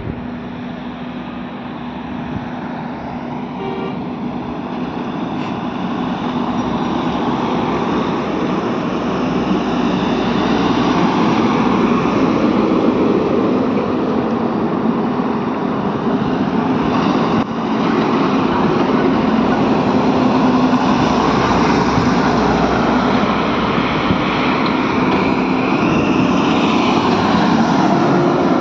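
Highway traffic passing close: cars, trucks and a bus, with engine drone and tyre noise on asphalt, growing louder over the first ten seconds and then staying loud.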